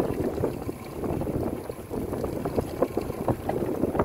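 Wind buffeting the microphone on a small boat over choppy water, a steady low rumble dotted with many small sharp knocks from waves slapping the hull.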